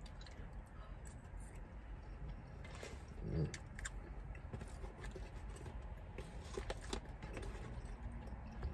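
Quiet eating sounds: chewing, and a metal fork scraping and tapping on a paper plate of pot pie and fries, with scattered small clicks. A brief, louder low sound comes about three seconds in.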